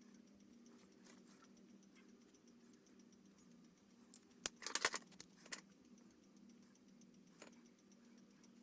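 A quick cluster of light, sharp clicks and taps about halfway through, with a few faint ticks elsewhere, over a low steady hum.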